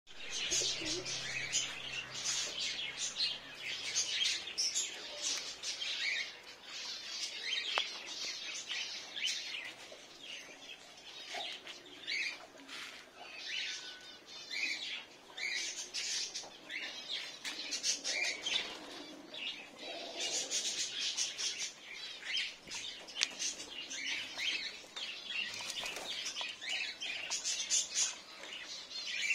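Many caged birds chirping and twittering without a break, in a dense chatter of short high-pitched calls.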